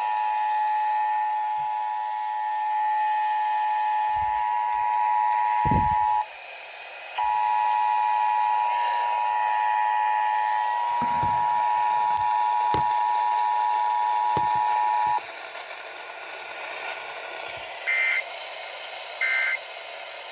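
Emergency Alert System attention signal: a steady two-tone alarm that breaks off about six seconds in, starts again a second later and stops about fifteen seconds in. It is followed by three short chirping SAME data bursts about a second and a half apart, with faint low pops from the broadcast underneath.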